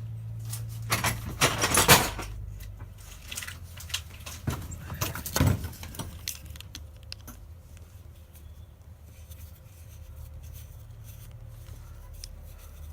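Small metal tools and objects clinking and rattling as they are rummaged through, loudest about two seconds in and dying away after about six seconds, over a steady low hum.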